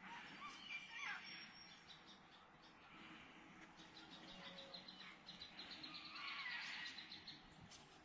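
Faint bird calls over quiet bush ambience, with a quick run of high ticking notes through the middle.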